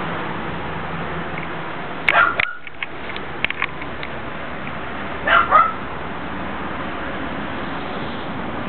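A dog barks, two short barks about two seconds in and two more about five seconds in, over steady background noise, with a few faint clicks in between.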